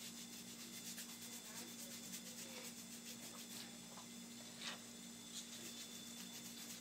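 Faint soft rubbing and a few light taps as wet green body makeup is worked onto a hand, over a steady low hum of room tone.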